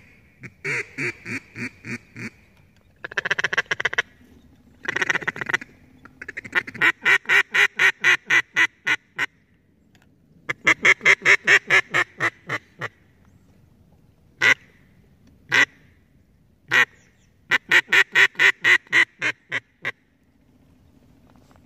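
Duck call blown by a hunter in runs of hen-like quacks, about five a second, with two short bursts of fast chatter a few seconds in and three single quacks spaced apart near the middle.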